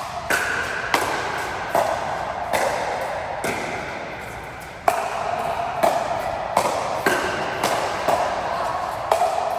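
Table tennis rally: a run of sharp ringing ball strikes about every three-quarters of a second, with a brief pause about four seconds in before the hits resume.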